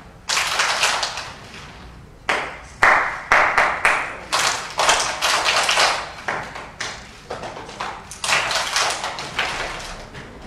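A group of young children doing body percussion: hand claps and body pats in rhythmic phrases of a second or two, with short pauses between them.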